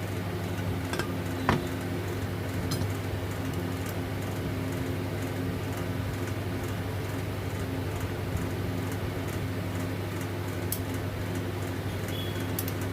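A steady low hum runs throughout, with a few light metallic clicks and clinks scattered through it, about one a few seconds apart.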